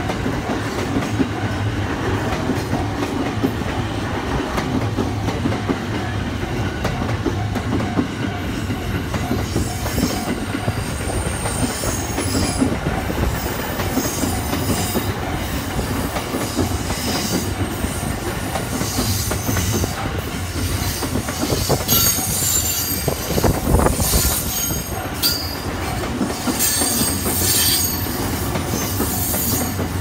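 JR E231 series electric commuter train running close by as it pulls away from a station, a steady rumble of wheels on the rails. From about a third of the way in, high-pitched wheel squeals come and go over the rumble.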